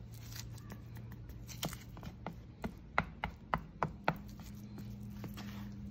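Scraper clicking and scraping against a palette board as thick gelcoat paste is worked and mixed, with a run of sharp taps in the middle. A faint steady hum lies underneath.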